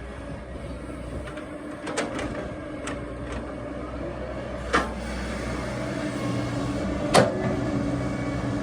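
Excavator's diesel engine running steadily under load, with a few sharp knocks from the machine working; the loudest come about five and seven seconds in.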